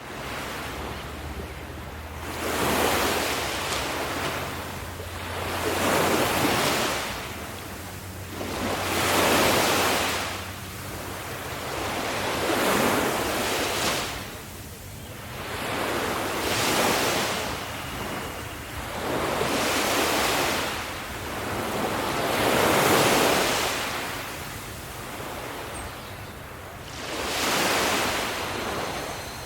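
Ocean waves breaking and washing on a shore, swelling and fading every three to four seconds, with a low wind rumble underneath.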